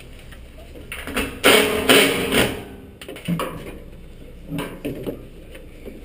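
Sheet-metal access panel being handled and taken off an air handler cabinet: a noisy stretch of scraping and rustling about a second in, then a few short knocks.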